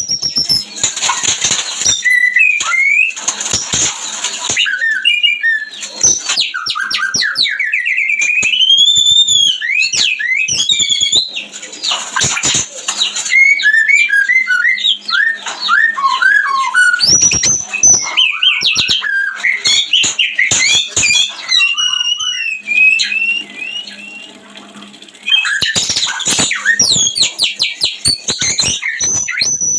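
White-rumped shama (murai batu) singing in breeding condition: a long run of varied whistled phrases that rise and fall, broken by harsh chattering bursts, with a brief quieter patch a little before the end.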